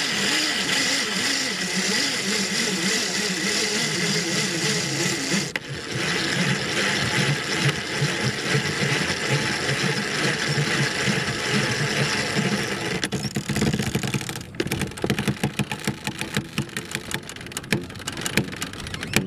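Pontos Grinder sailboat winch cranked by hand to hoist a mainsail: a steady mechanical whir from the winch gearing. The sound changes about five seconds in, and again about fourteen seconds in, after which it becomes a fast run of clicks.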